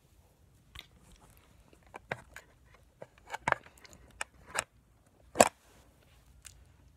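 Handheld phone camera being moved and handled: a string of irregular short knocks and rubs against its microphone, the loudest about five and a half seconds in.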